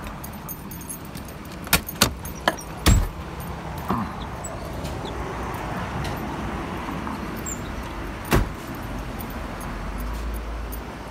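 A car door opening and shutting: a few sharp clicks, then a heavy slam about three seconds in, with keys jangling. A steady outdoor street hum follows, with one more sharp knock around eight seconds and a low rumble near the end.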